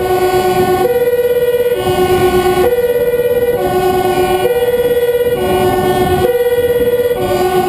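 Two-tone emergency siren of a Dutch fire engine, switching between a low and a higher note about once a second, over the truck's engine and road noise.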